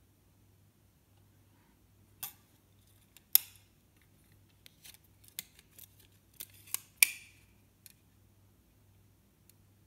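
Folding waist-level viewfinder hood for a Kiev 88 being collapsed by hand: a series of sharp metal clicks and snaps as the magnifier and side panels fold down. The loudest snaps come about a third of the way in and again about two-thirds in, with a run of lighter clicks between them.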